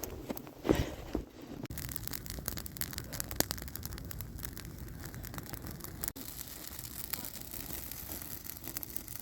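Dry softwood twigs crackling and snapping in many small sharp clicks over a steady low rumble, with one louder snap about a second in.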